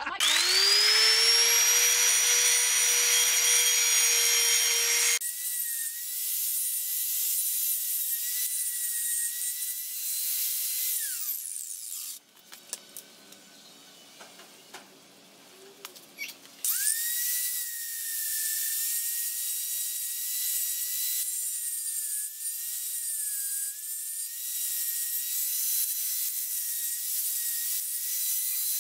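Handheld angle grinder running with a high steady whine while cleaning weld spatter off a welded steel harness bar, its pitch dipping briefly each time the disc is pressed against the metal. Partway through it winds down to a quieter pause of a few seconds, then spins back up. It opens with a motor spinning up to speed.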